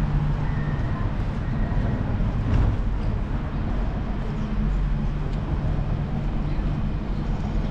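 A motor vehicle's engine running close by in street traffic, a steady low hum, with a reversing alarm beeping about once a second in the first couple of seconds.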